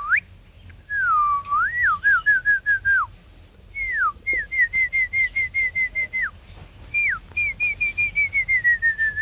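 A person whistling: a single pure tone in several phrases, mostly runs of quick repeated notes at about five a second, each phrase ending in a falling glide.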